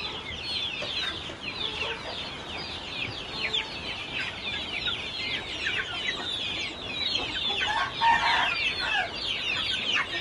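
A flock of caged young chickens peeping without pause: many short, high, falling chirps overlapping one another, with a few lower calls about eight seconds in.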